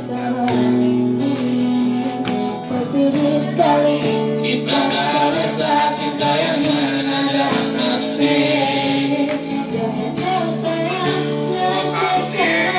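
A man singing into a handheld microphone over backing music with a steady beat.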